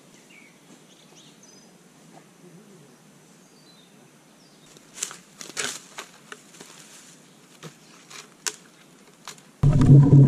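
Faint high bird chirps over a quiet forest hush, then scattered sharp knocks and rustles as a peeled log is handled. Near the end a sudden loud, low rumbling and knocking as the log is heaved and shifted close by.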